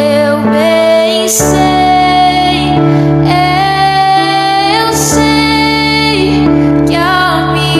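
Slow worship music: a woman singing long, held notes with vibrato over sustained keyboard chords, the chord changing about a second and a half in.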